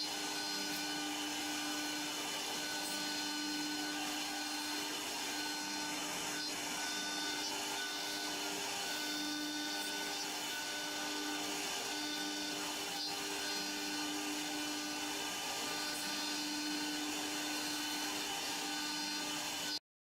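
CNC router spindle running with a steady high whine while its bit carves a wooden cylinder turning on the rotary axis, with a rough cutting hiss. The sound cuts off suddenly into silence at the very end.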